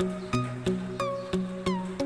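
Background music with a steady beat: a new pitched note about three times a second, some of them sliding in pitch.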